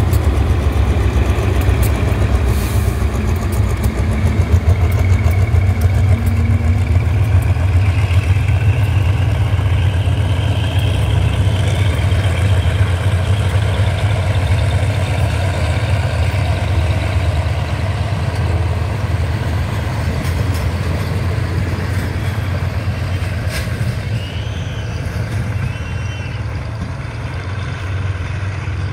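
Aging General Electric GEA-class diesel-electric locomotive's engine running with a heavy low throb as it hauls a passenger train out of the station, the carriages rolling past on the rails. The sound slowly fades over the last few seconds as the train draws away.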